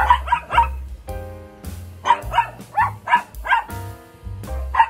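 Dog barking in quick runs of short barks: three right at the start, a longer run of about six about two seconds in, and more near the end. Background music plays underneath.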